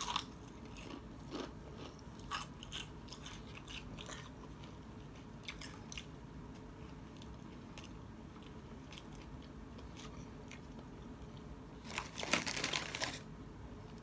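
Close-up chewing of Doritos tortilla chips and a tuna sandwich: crisp crunches in the first seconds, then quieter scattered chewing clicks, with a dense crackling burst about twelve seconds in.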